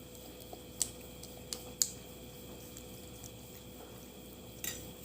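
Quiet eating sounds: four or so short sharp clicks and soft squishing as crab and cucumber are handled and chewed, over a faint steady hum.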